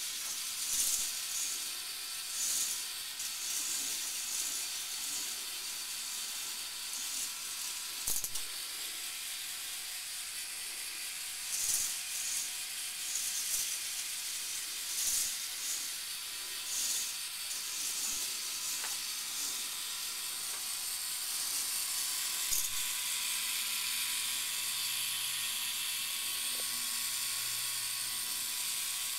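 Plastic K'nex roller coaster cars rolling along the track: a steady rushing hiss that swells in repeated short surges as the train runs through the course. A low steady hum joins in near the end.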